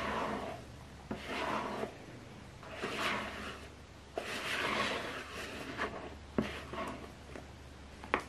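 Spatula scraping and folding thick pandan cake batter in a plastic mixing bowl, in slow repeated swishing strokes. There are a few sharp knocks of the spatula against the bowl.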